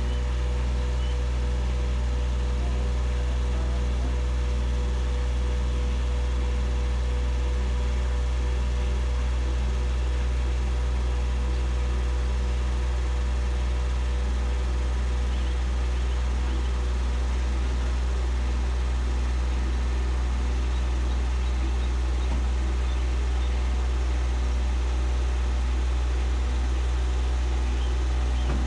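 Towing truck's engine idling steadily, a deep continuous hum that does not change.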